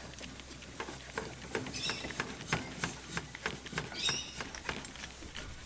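A small Coleman propane gas canister being screwed by hand into the gas inlet of a portable gas camping shower heater: irregular light clicks and short scrapes of metal threads and fingers on the canister.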